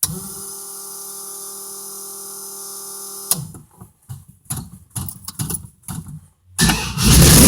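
Start-up of a supercharged, stroked 440 Mopar V8 on a 6-71 blower, breathing through a 3.5-inch exhaust with Dynomax Ultraflow mufflers. A steady electric-sounding hum runs for about three seconds, followed by a few seconds of uneven short knocks. The engine fires near the end and runs loud.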